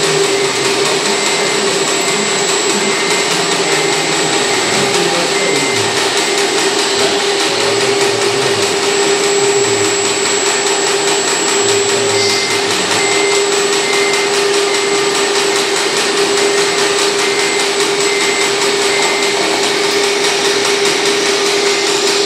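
Steady whine of a scale RC Terex crawler excavator's hydraulic pump running as the model digs, one constant tone over a hiss, with faint regular beeping at times.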